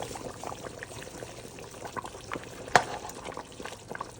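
Large pot of curry goat in water bubbling at a boil, a steady patter of small irregular pops with one sharper pop or knock a bit under three seconds in.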